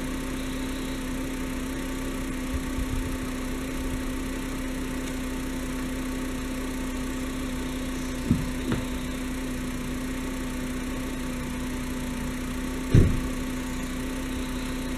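Volkswagen Jetta wagon's engine idling steadily, with a short knock about eight seconds in and a louder thump near the end.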